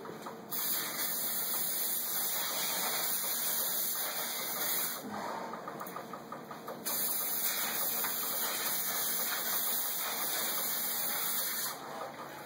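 Pressurized spray hissing in two long bursts: the first stops about five seconds in, and the second starts again a couple of seconds later and stops near the end.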